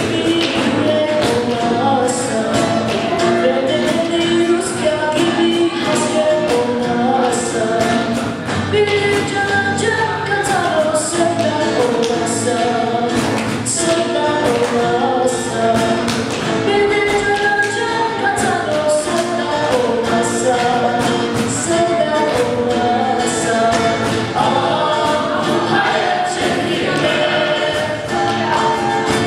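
Voices singing a Turkish song together over instrumental accompaniment, with a regular light percussion tick keeping the beat.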